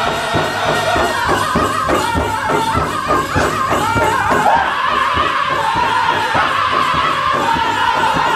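Powwow drum group singing a chicken dance song in unison, over a steady beat struck together on a large shared hide drum, about three beats a second.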